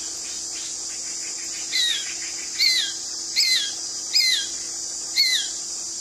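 A bird calls five times, each a short note slurring downward, spaced a little under a second apart, over a steady high hiss.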